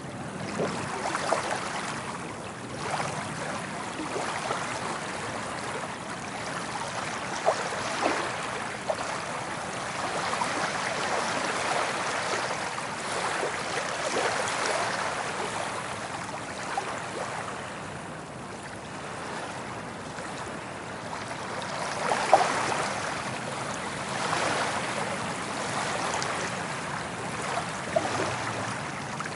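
Soft ocean waves breaking and washing up a beach, the wash swelling and easing every few seconds, with small splashes in it.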